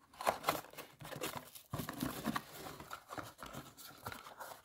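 Irregular rustling and crinkling of plastic bags and cardboard, with small knocks, as a hand rummages among wrapped spare parts in a cardboard box.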